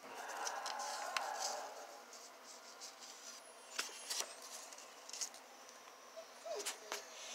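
A paper cutout rustles and slides over a sheet of paper, louder in the first two seconds, followed by a few light clicks and taps as it is set down.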